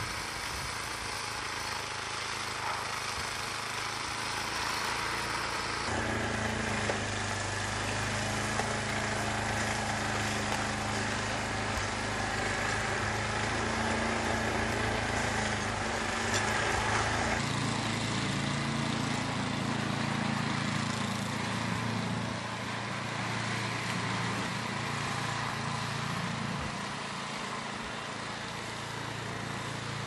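An engine running steadily, its note changing about six seconds in and again a little past halfway.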